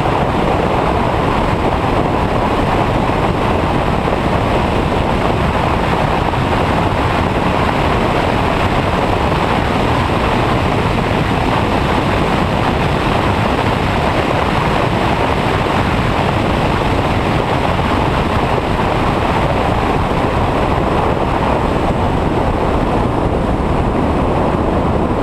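Steady, loud wind rush over the microphone of a camera mounted on a 1985 Porsche 911 driving at speed on a race track, with road and car noise blended underneath.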